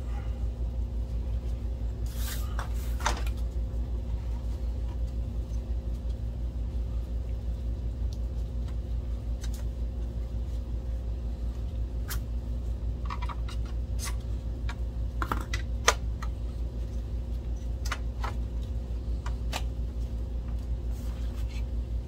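Scattered light clicks and taps of plastic parts and wiring being handled inside an opened DLP projector, the sharpest about three quarters of the way through, over a steady low hum.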